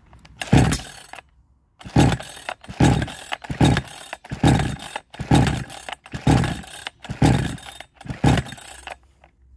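62cc two-stroke chainsaw being pull-started about nine times in a row, each pull spinning the engine up with a brief burst of firing that falls away without catching. The owner thinks it is not getting fuel, blaming the timing or the carburettor.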